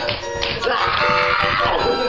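Background music with held notes, over which a long high cry rises and then falls in pitch from about half a second in.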